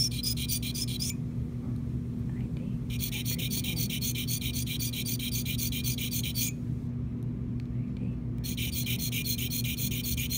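A flat sharpening stone stroked quickly up and down against the cutting edge of a steel dental sickle scaler held still, in three runs of strokes with short pauses between them. A low steady hum runs underneath.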